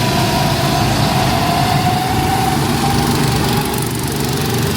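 An engine running steadily, with a low hum and a faint whine that slowly rises in pitch.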